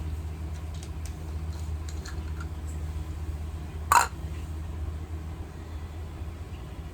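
Steady low hum with faint scattered handling clicks, and one sharp click about four seconds in, from hands working on a laptop's underside.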